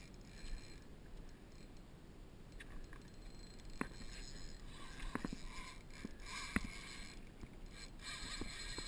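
Low wash of water and wind around a small fishing boat, with a few short sharp knocks: near four seconds, twice a little after five, and about six and a half seconds in, the loudest.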